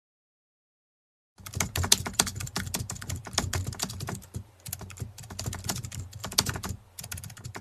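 Rapid, irregular clicking with the quick, uneven rhythm of typing on a keyboard, starting about a second and a half in, with short pauses near four and a half and seven seconds, and cutting off abruptly at the end.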